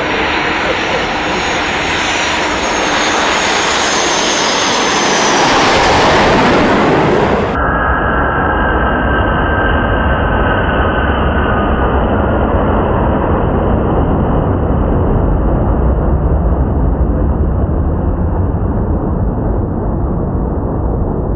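Jet aircraft flying past, building to its loudest about six seconds in. The sound then cuts off abruptly and gives way to a steady, dull rumble.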